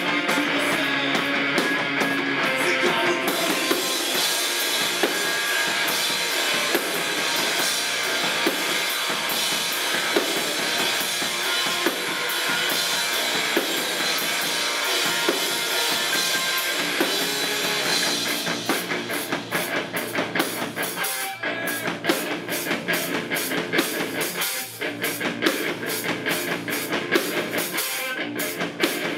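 Rock band playing live with electric guitar and drum kit in a loud, dense instrumental passage; about two-thirds of the way through, the drums turn to a choppier, stop-start pattern with brief breaks.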